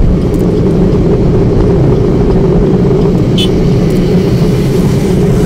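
Steady low rumble of a car's engine and road noise heard from inside the cabin. A brief high-pitched sound cuts in about three and a half seconds in.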